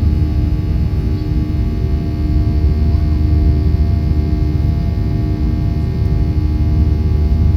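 Boeing 737-800 jet airliner's CFM56-7B engines running, a steady low drone with a few steady tones above it.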